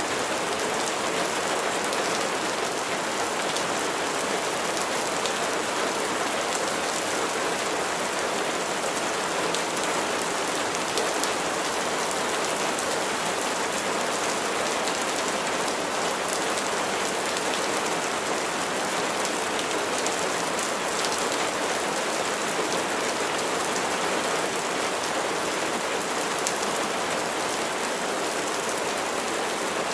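Steady rain falling, an even hiss of raindrops with fine patter of individual drops on a surface.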